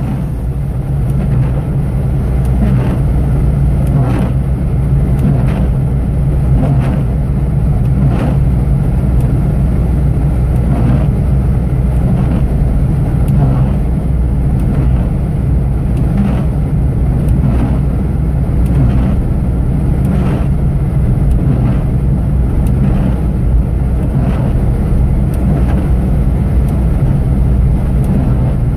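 Fiat Punto cabin while driving on a snowy, slushy road: steady engine hum and tyre noise. The windscreen wipers swish at a regular pace, about once every second and a half.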